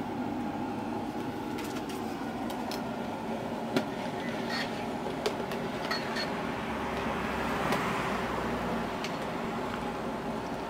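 A steady hum, with a few light clicks and taps of a ladle against the pot as the gravy is stirred.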